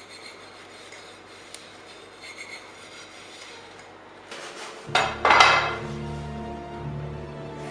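Faint rubbing and light clinks of washing up at a sink. About five seconds in, a sudden loud rushing swell hits as a scare sting, and a sustained dark music drone begins under it.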